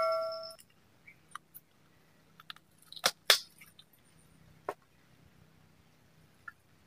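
A ringing bell-like chime dies away in the first half-second. After it come scattered faint clicks and taps of handling, with two louder knocks about three seconds in and another a little before five seconds.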